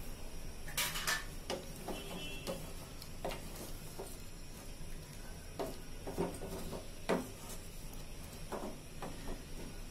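A wooden spatula stirring chicken pieces in sauce in a metal pot. It makes irregular scrapes and knocks against the pot, the loudest a scrape about a second in and a knock about seven seconds in.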